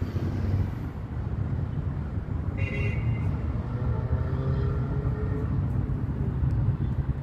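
Steady low rumble of a motor vehicle running close by, with faint higher tones near the middle.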